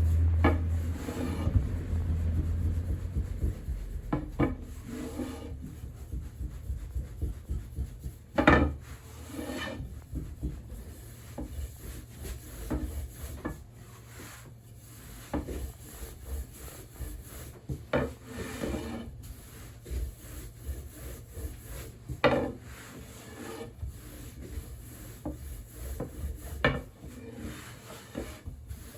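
Buckwheat soba dough being worked by hand on wooden surfaces: irregular rubbing and scraping against wood, with scattered light wooden knocks. A low rumble sounds in the first few seconds.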